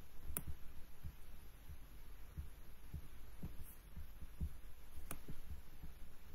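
Handling noise from the recording device as fingers fumble at it to stop the recording: irregular low thumps about twice a second, with a sharp click about half a second in and another about five seconds in.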